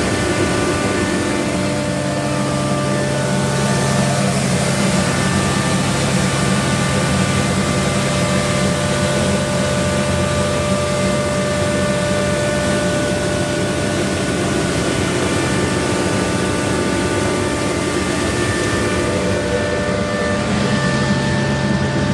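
TYMCO regenerative-air street sweeper running, its engine and blower making a steady, loud rushing noise with several steady whining tones.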